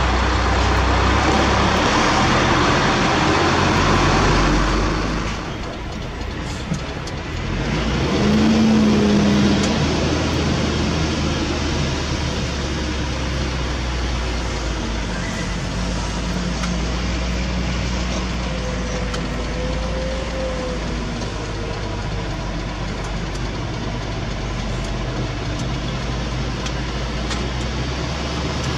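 Heavy diesel engine running steadily, louder for the first few seconds, dropping briefly, then swelling again about eight seconds in before settling to an even drone.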